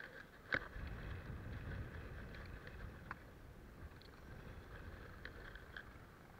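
Outdoor wind rumble on the microphone, with a faint steady high hum behind it. A sharp click comes about half a second in, and a softer one around three seconds.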